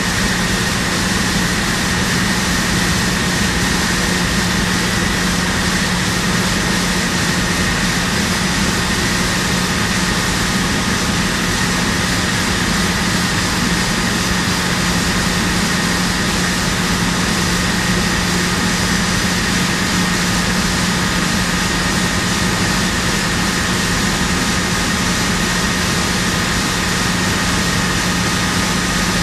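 Steady, loud machinery drone with a constant low hum and a couple of fainter higher whines, unchanging throughout.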